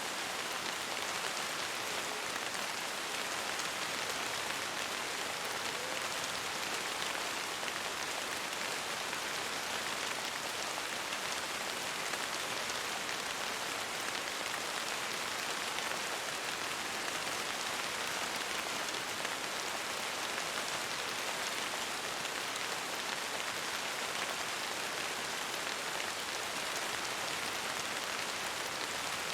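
Steady rain: an even, dense hiss of falling drops that never rises or falls, with no thunder or other events.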